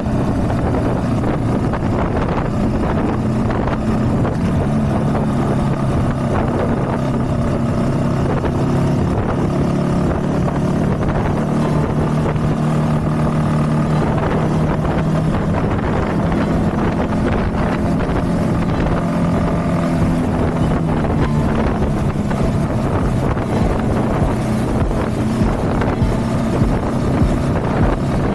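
Honda CB190R motorcycle's single-cylinder engine running steadily while riding, with wind noise on the microphone. The engine note holds until about two-thirds of the way through, then eases off, and the wind buffeting grows near the end.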